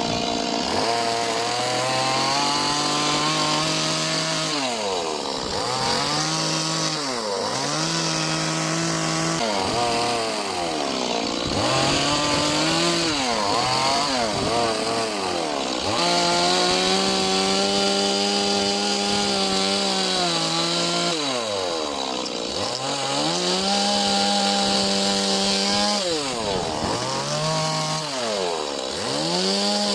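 Two-stroke chainsaw carving into wood, the engine revving up, holding at speed for a second or several, then dropping back, again and again.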